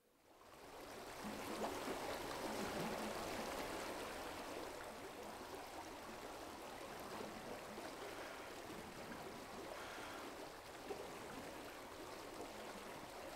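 Field recording of a woodland stream, a steady even rush and trickle of running water, fading in at the start and played back over loudspeakers.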